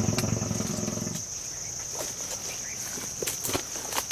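Steady high-pitched insect drone in the bush throughout. A low rumbling sound fills the first second and stops suddenly, and after it come scattered clicks and rustles of people moving in the undergrowth.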